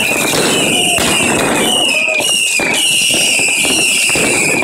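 Fireworks going off at close range: a dense crackle of firecrackers with many sharp bangs, under a high whistle from whistling fireworks that comes again and again, dipping slightly in pitch each time.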